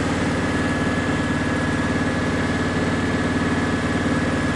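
Engine-driven welder running steadily at a constant speed, a low even engine drone with a thin steady whine above it.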